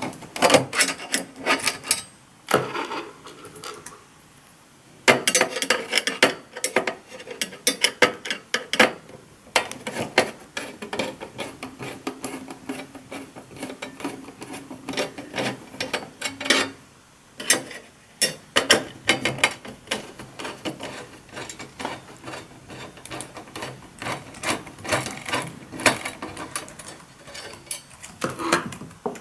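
Hand screwdriver backing screws out of the sheet-metal inverter board cover of an LCD TV, in runs of rapid clicking with short pauses between screws.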